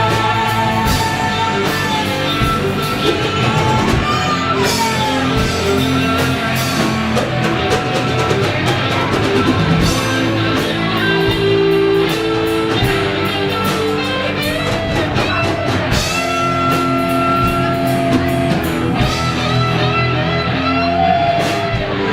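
A live rock band playing a funky song: guitar with held and bending lead notes over bass and drum kit, with little or no singing.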